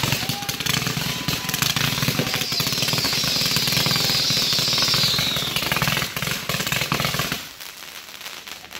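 Consumer firework fountain spraying sparks with a dense, rapid crackle and hiss. A high wavering whistle runs through the middle. The spray dies away about seven seconds in.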